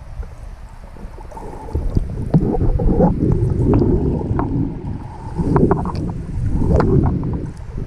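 Underwater sound of a camera moving through pond water: a muffled low rushing and gurgling of water with scattered sharp clicks and knocks, swelling in surges a few times.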